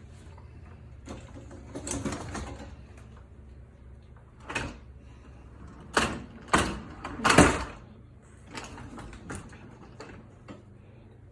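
Dishwasher being loaded: scattered clatters and knocks of dishes, spoons and the sliding racks, with a cluster of sharp ones about halfway through.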